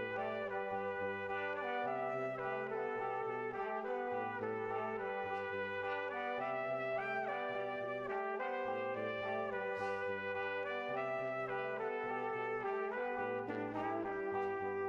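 Instrumental background music: held melody notes that move in steps over a low bass line changing about once a second.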